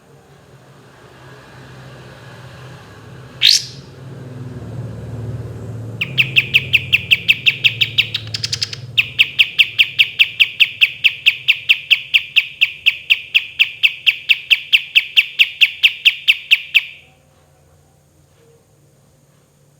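Kapas tembak bulbul singing: one rising chirp, then a long, fast roll of evenly repeated sharp notes, about five a second, lasting some ten seconds. The roll has a short break a couple of seconds in and stops suddenly.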